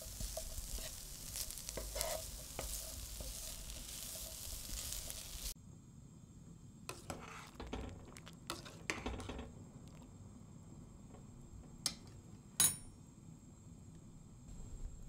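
Food sizzling in a frying pan while a utensil stirs it, with small clicks of the utensil against the pan; it cuts off suddenly about five and a half seconds in. After that come quieter handling rustles and knocks, and a sharp light clink near the end.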